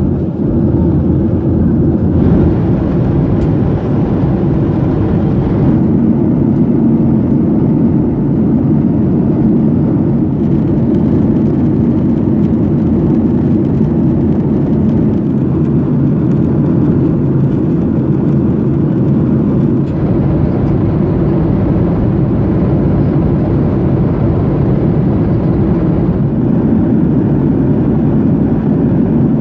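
Steady roar inside the cabin of a Boeing 737-800 in flight: engine and airflow noise, heaviest in the low range and unchanging throughout.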